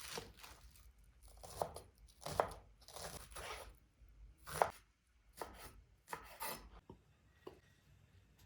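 Knife chopping food on a cutting board in about a dozen uneven strokes, some short and sharp, some drawn out like a slice or scrape.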